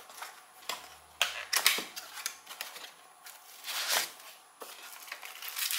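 A small cardboard box being opened and unpacked by hand: scattered scrapes, taps and rustles of cardboard and packing wrap, the loudest about four seconds in.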